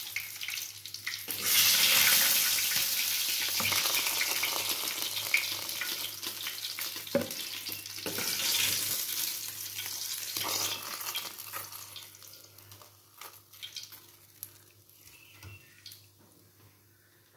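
Food sizzling in hot fat. The sizzle swells about a second and a half in and dies away over the next ten seconds or so, with a few light knocks along the way.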